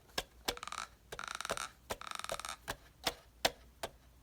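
A series of sharp, irregularly spaced clicks, with three short buzzing rasps in the first half.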